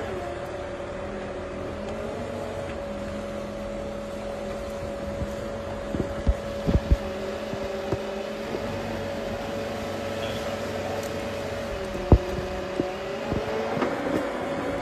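John Deere crawler dozer running steadily under load with a constant whine, its pitch dipping and rising now and then as it works through brush. Sharp cracks and knocks come a few times about six to seven seconds in, and one loud one near twelve seconds.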